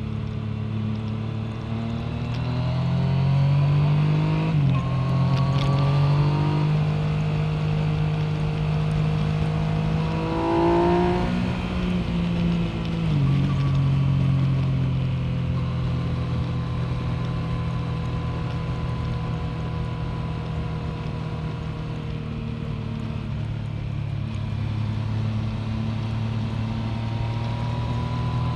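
Yamaha MT-09's inline three-cylinder engine under way. Its pitch climbs and drops sharply about five seconds in, rises again and falls back around thirteen seconds in, then holds steady at cruising revs.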